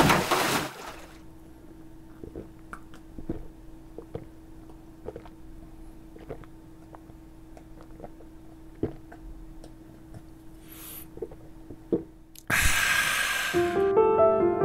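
A person drinking beer from a glass in gulps: a run of soft, irregular swallowing clicks over a faint steady hum. Near the end comes a loud breathy rush of air, followed by piano music.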